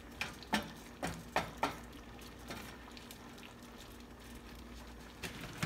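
Wooden spatula stirring shrimp and vegetables in sauce in a stainless steel skillet: about five light knocks and scrapes against the pan in the first second and a half, one more near the end, over a faint steady simmer of the sauce.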